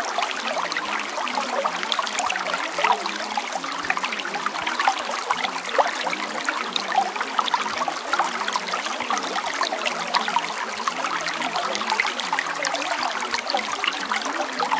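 Running water trickling and babbling steadily, like a small stream, with many little splashes and gurgles.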